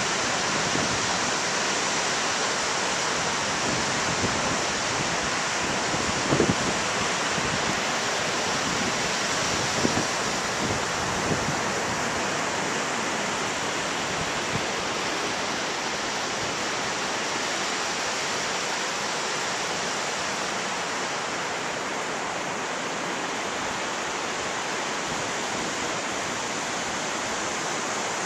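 Atlantic surf breaking on a sandy beach, a steady rush of waves. A few brief low bumps come through, the loudest about six and a half seconds in and another about ten seconds in.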